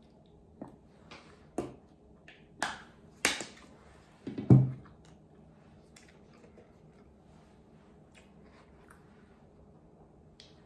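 Small plastic drink bottle handled and its screw cap twisted open: a string of sharp plastic clicks and crackles over the first few seconds, the loudest about four and a half seconds in, then only faint small ticks.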